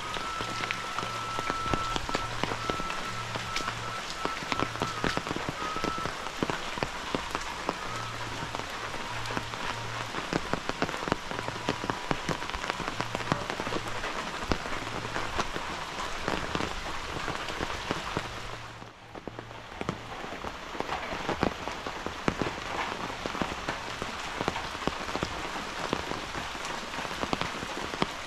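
Heavy rain falling steadily, a dense patter of drops, briefly quieter about two-thirds of the way through.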